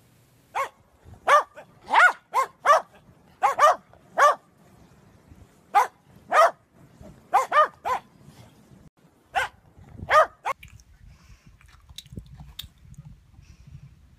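Corgis barking: short, sharp, fairly high-pitched barks, singly and in quick pairs, about sixteen in ten seconds, stopping about ten seconds in.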